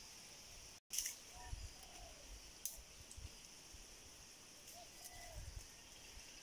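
Quiet outdoor pasture ambience: a steady high hiss with a few faint, short falling chirps and a few sharp clicks. The sound cuts out completely for an instant about a second in.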